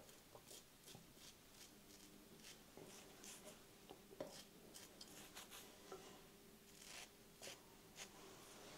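Very faint, short scratchy strokes of a King C Gillette safety razor cutting lathered stubble, coming irregularly about one or two a second, the loudest a little after four seconds in.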